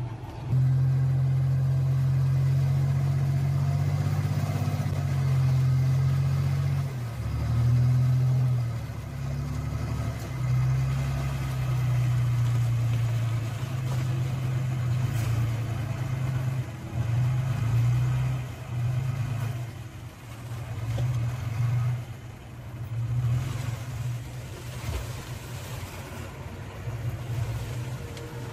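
Diesel engine of a 5-ton dump truck running with a steady low hum that swells and eases in level as the truck moves, then works to hoist its bed and tip out a load of soil.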